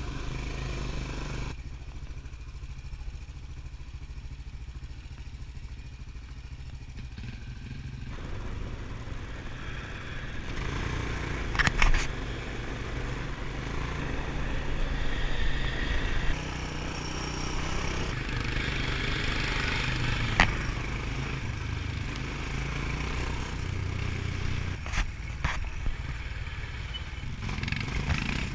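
ATV engine running steadily during an off-road ride, with a few sharp knocks and some rattling over the trail.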